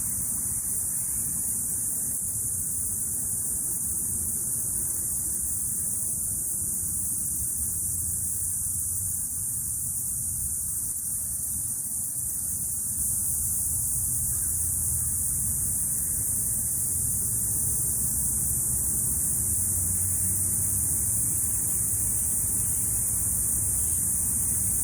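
Cicadas buzzing in a steady, continuous high-pitched drone, with a low rumble underneath.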